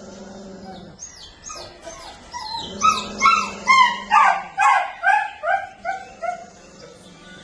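A dog barking in a run of short, high yaps that fall in pitch, about two or three a second, starting about two seconds in and loudest in the middle. Under the first part there is a low steady hum.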